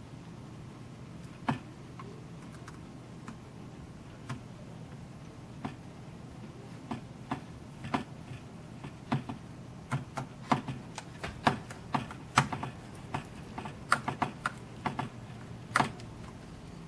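Small sharp clicks and taps of a screwdriver and fingers on a camera's plastic and metal body as its case screws are driven back in. The clicks are few at first and come quicker and closer together in the second half.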